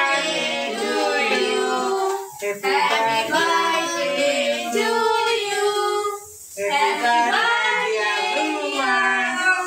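A small group of women's and girls' voices singing a birthday song together without accompaniment, in phrases with short breaks between the lines.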